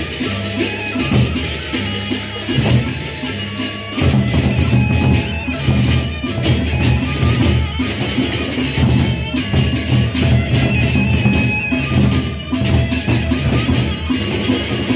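Gendang beleq ensemble playing: large Sasak barrel drums beaten with sticks in fast, dense, interlocking rhythms, with bright metal percussion over the drums.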